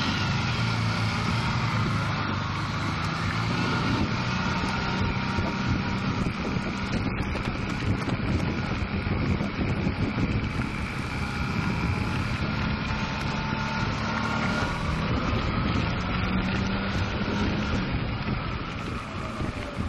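Honda ST1300 Pan European motorcycle's V4 engine running as the bike pulls away from a standstill and speeds up, with wind noise on the helmet microphone.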